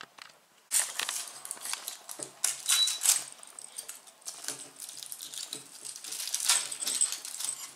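Gold foil wrapper of a chocolate bunny crinkling and tearing as it is picked off by hand, in irregular crackly bursts.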